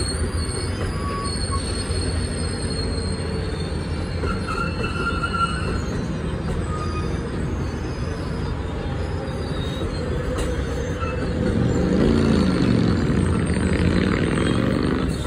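Amtrak Superliner double-deck passenger cars rolling slowly past, with a steady low wheel-on-rail rumble and faint high wheel squeals coming and going. The rumble grows louder and sweeps past about twelve seconds in, as a car's wheels pass close by.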